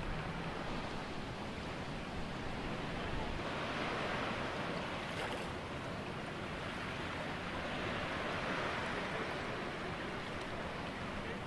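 Water washing and splashing, swelling and easing every few seconds, with wind on the microphone, heard aboard a sailing catamaran under way.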